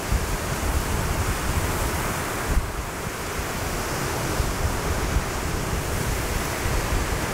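Wind blowing across the microphone: a gusty low rumble over a steady rushing hiss.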